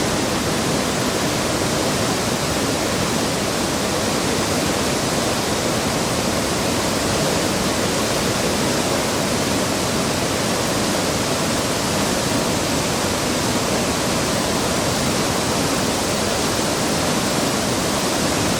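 Waterfall pouring, a loud, steady rush of falling water with no change in level.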